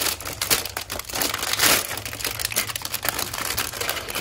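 Clear plastic bags and film around toy parts crinkling and rustling as hands pull them open and off, a dense run of crackles with the loudest rustle about a second and a half in.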